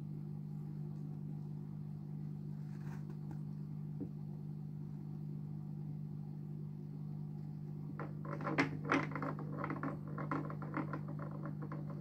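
Steady low hum from the aquarium equipment, and from about eight seconds in a quick run of clicks and knocks lasting some three seconds: a yellow-bellied slider knocking its stone against the rocks and glass of its tank.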